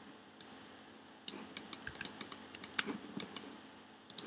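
Computer keyboard being typed on: an irregular run of light key clicks, one early tap, then a quick flurry in the middle and a few more near the end.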